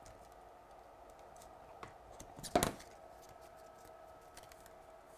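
Quiet scratching and ticking of a craft knife cutting Metcalfe printed card platform edging against a steel rule on a cutting mat, with one sharp click about two and a half seconds in.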